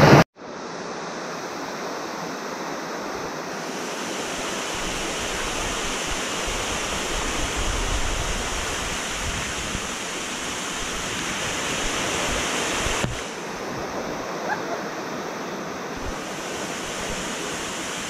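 Waterfall rushing steadily: a continuous, even noise of falling water.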